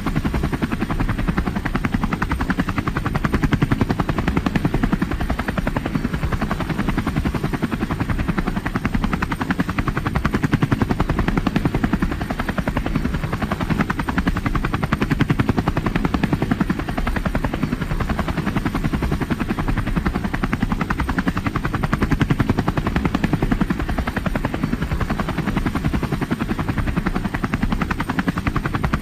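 Helicopter in flight: steady, rapid thudding of the rotor blades with engine noise underneath.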